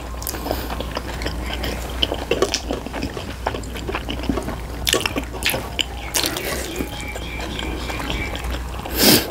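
Close-up wet mouth sounds of someone chewing pork momos: many small, sticky clicks and smacks, with a short louder noise near the end.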